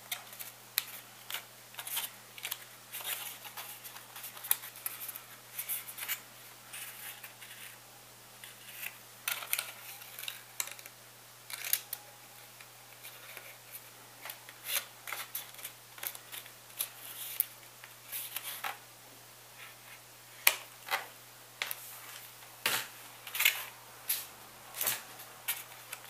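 Irregular short clicks, taps and rustles of stiff cardstock and a hot glue gun being handled while a small folded paper box drawer is glued together, over a faint steady low hum.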